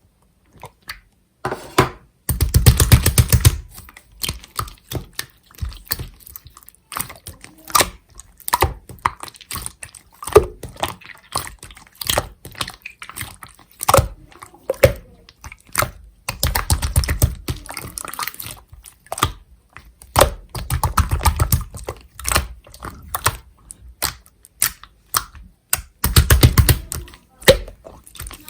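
Clear slime being squished, poked and stretched by hand: sticky clicks and wet pops. Four times it breaks into a loud stretch of rapid crackling pops.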